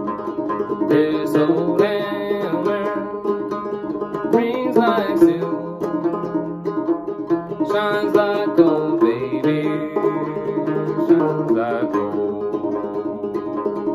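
A c.1867 Dobson-patent banjo, an old open-back instrument with what the player takes for its original head, played continuously in a steady plucked rhythm.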